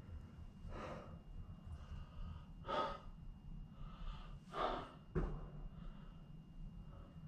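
A person breathing audibly close to the microphone: three heavy breaths about two seconds apart, followed by a single sharp knock a little after the third. A faint steady high whine runs underneath.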